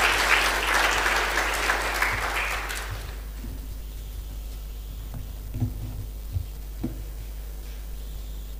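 Audience applauding, dying away about three seconds in. A few low thumps follow over a steady low hum.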